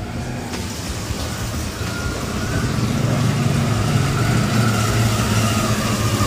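An engine running steadily, with a low hum that gets louder about two and a half seconds in.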